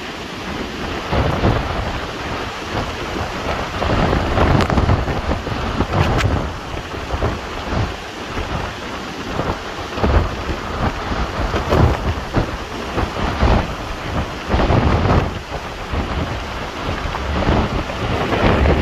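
Hurricane Ian's storm wind and rain: a dense rushing roar that swells in gusts every second or two, with deep rumbling as the gusts buffet the microphone.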